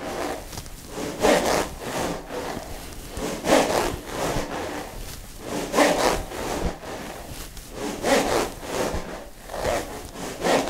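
Smovey swing rings being swung: the steel balls inside each spiral plastic tube roll with every swing, giving a rhythmic rushing stroke a little more than once a second, every other stroke louder.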